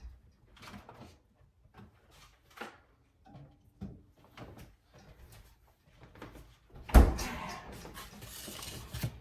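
Kitchen handling noises: scattered light knocks and clicks, then a loud thump about seven seconds in followed by a couple of seconds of rustling and scraping.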